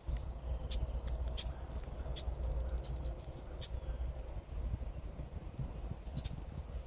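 Small birds chirping in short high calls, with a quick run of notes about two seconds in and a cluster of calls between four and five seconds in, over a steady low rumble.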